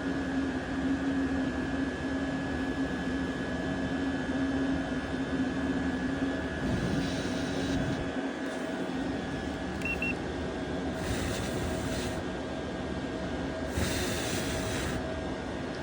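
Diesel heater running: a steady hum of its fan and burner, with three short hissing rushes about seven, eleven and fourteen seconds in.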